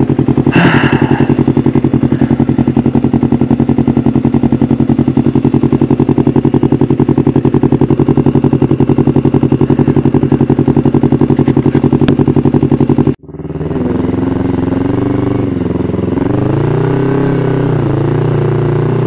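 Yamaha MT-25's 250 cc parallel-twin engine running at a steady throttle while riding a gravel track. After a brief break about 13 seconds in, its pitch rises and falls with the throttle.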